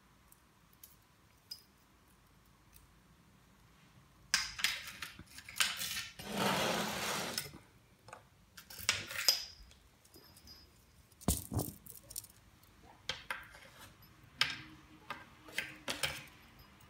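Cat toys knocked about in play: a small bell on a feather wand toy jingling and a ball knocking in a plywood ball-track toy. The clattering and jingling start about four seconds in, with a longer scraping rattle a couple of seconds later.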